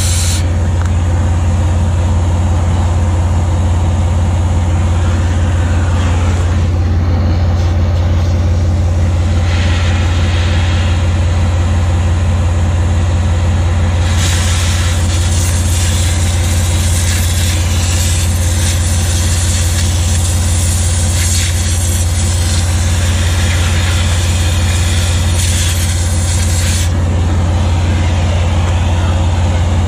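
Oxy-fuel cutting torch hissing as it cuts old weld off steel. The sharper hiss of the cutting jet comes in two stretches, for about the first six seconds and again from about halfway through until near the end, over the steady low drone of an idling engine.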